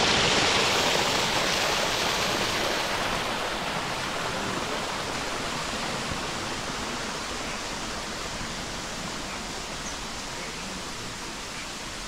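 Small waterfall spilling over rocks into a stream: a steady rush of water, loudest at first and gradually fading.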